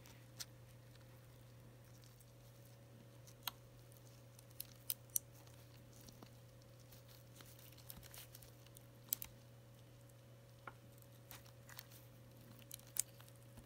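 Faint, scattered small clicks and crinkles of a flat keyboard ribbon cable being handled with gloved fingers and pushed into its motherboard connector, over a low steady hum.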